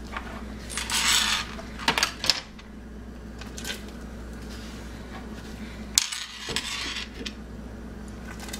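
A few sharp metallic clinks and knocks from kitchen things being handled at a stovetop stockpot, with short rustles between them, over a steady low hum.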